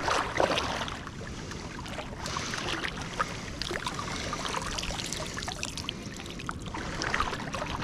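Water splashing and trickling as a cast net holding herring is hauled in from the river, with many small scattered splashes and drips.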